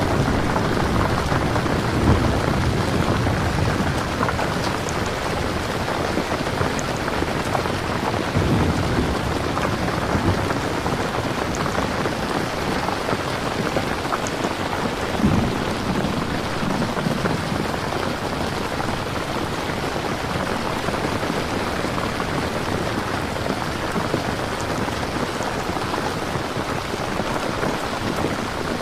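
Steady heavy rain falling, with a few brief low rumbles rising out of it.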